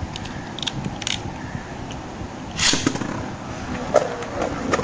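Beyblade Burst top (Xeno Xcalibur) launched into a plastic stadium with a sharp rip of the launcher about two and a half seconds in, after a few light clicks of the launcher being readied. It then spins in the stadium, knocking against the rim a couple of times near the end.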